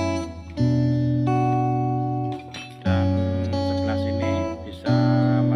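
Background music: guitar chords struck about every two seconds and left ringing.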